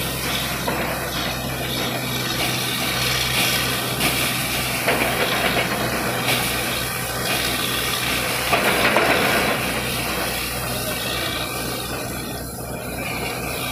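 Borewell drilling rig running: a steady engine drone under a continuous hiss of air and water.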